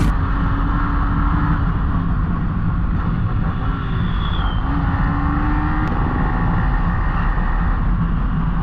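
Motorcycle engine running while riding, its note rising and falling a little, under heavy wind rumble on the camera microphone.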